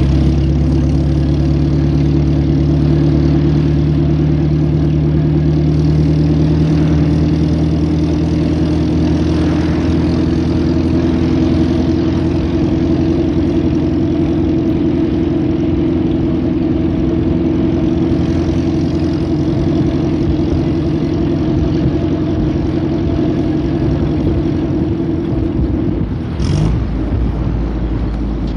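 1929 Bentley vintage car driving, its engine running at a steady pitch. Near the end there is a short clunk and the engine note drops.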